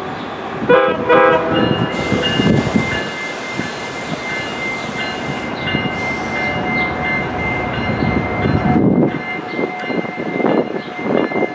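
Train horn giving two short blasts, then a passenger train running with a steady high-pitched tone over its rumble.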